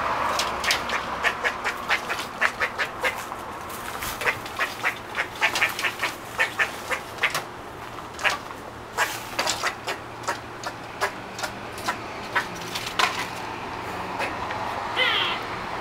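A squirrel giving short, sharp alarm barks, several a second in irregular runs, which stop about two seconds before the end; a brief high chirp follows near the end.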